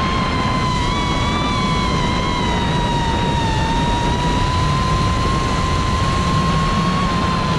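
A QAV cinewhoop FPV drone's motors and ducted props whining at a steady high pitch in flight, the pitch wavering slightly with throttle, over a steady rushing hiss.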